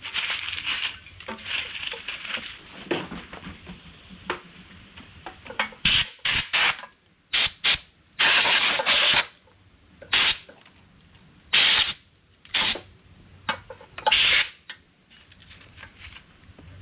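Socket ratchet on a long extension working bolts on a small pressure-washer engine, clicking in repeated short bursts; the longest run lasts about a second.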